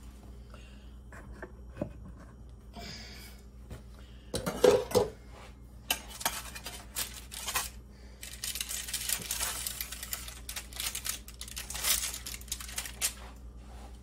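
A metal spatula knocking, scraping and clinking against a metal baking sheet as roasted butternut squash halves are turned over. The loudest clanks come about four and a half seconds in, and a busier run of scraping follows in the second half.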